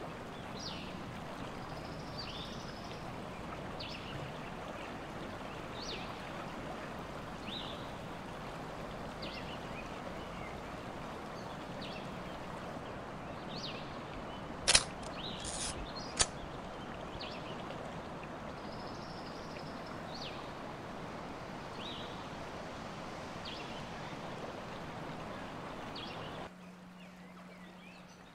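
Steady running water with small songbirds giving short chirps every second or two. Two sharp clicks come a little past the middle. Near the end it cuts to a quieter background with a low steady hum.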